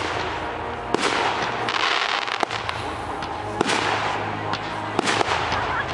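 Aerial fireworks shells bursting: four sharp bangs roughly a second apart over a steady crackling hiss.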